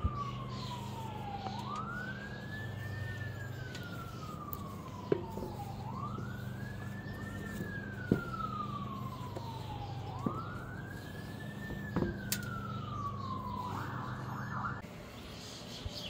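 Emergency vehicle siren wailing: its pitch rises quickly and then falls slowly, repeating about every four and a half seconds. Near the end it switches to a quick rapid warble and then cuts off. A few light clicks sound over it.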